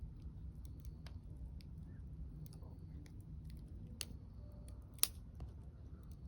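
Wood fire crackling, with scattered small snaps and a few sharper pops, the loudest about five seconds in, over a low steady rumble.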